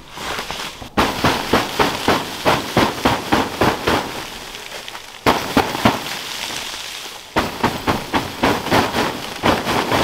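Snow-laden hot-tent fabric being struck from inside: rapid slaps, about three to four a second in several runs, knocking the snow off the roof.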